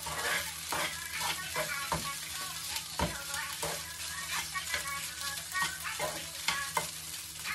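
Fried rice sizzling in a hot frying pan while a metal utensil stirs and scrapes through it, with frequent irregular knocks against the pan.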